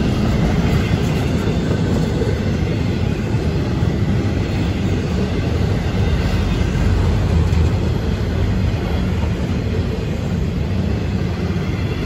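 Florida East Coast Railway intermodal freight train passing at speed: a steady low rumble of wheels rolling on the rails.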